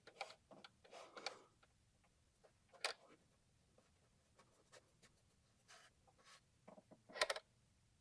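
Faint, scattered rubbing and scraping of a rag wiping carburetor cleaner around the inside of a throttle body, with a few light clicks; the sharpest sound comes about three seconds in.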